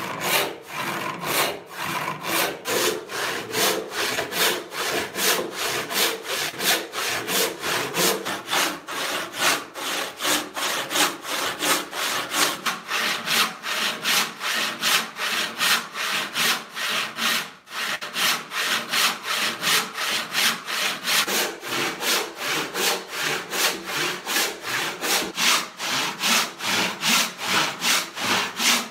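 Hand resawing a walnut board with a large handsaw: steady, even back-and-forth saw strokes ripping down through the board's width to split it into two thin panels, with one brief break a little past halfway.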